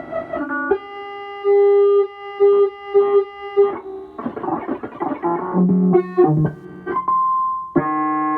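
Buchla Music Easel synthesizer playing a stream of stepped random-pitched notes, its pulsar self-triggering at a rate set by an external signal through the envelope detector. A long held note comes early, a grainy, noisier stretch follows in the middle, and a high held tone sounds near the end.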